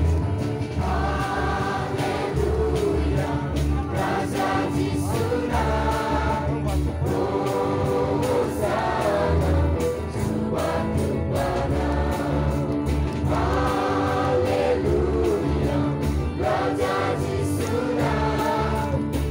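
A large crowd singing a lively gospel song together, over a steady bass accompaniment.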